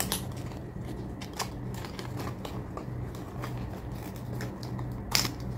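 A small cardboard box being opened and handled by hand: light, scattered clicks and rustles of cardboard and packaging, with one sharper snap about five seconds in, over a steady hum.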